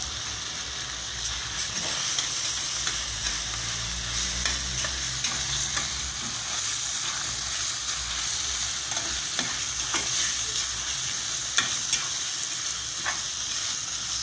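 Chicken pieces sizzling in hot oil in a stainless steel frying pan while a metal spatula stirs them, scraping and clicking against the pan again and again.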